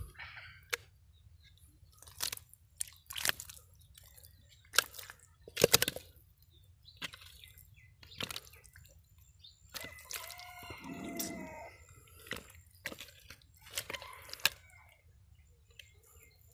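Wet squelches and sharp slaps of mud and fish as bare hands grab spotted snakehead fish out of a mud hole and drop them into a plastic bucket, a dozen or so separate splats, the loudest a little under six seconds in. A short pitched call sounds from about ten to twelve seconds in.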